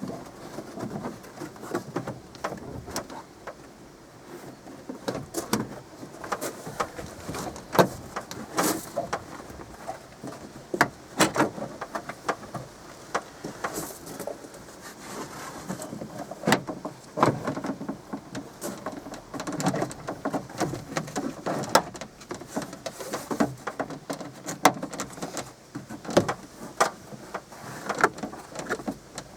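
Irregular clicks, taps and rattles of a car's plastic door trim and fittings being handled and refitted by hand.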